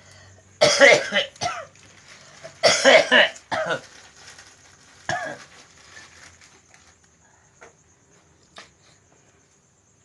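A person coughing in harsh bouts: two long fits in the first four seconds and a shorter one about five seconds in, then only a few faint clicks.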